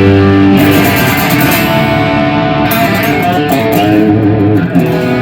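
Fender electric guitar played through a Marshall amp: held notes ringing loud, with one note bent and wavering from about three seconds in, then a fresh chord struck near the end.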